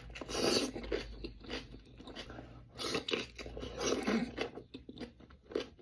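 Close-miked eating: a person biting into and chewing a seasoned boiled onion from an onion boil, in irregular wet, clicking mouthfuls that are loudest near the start and again around three and four seconds in.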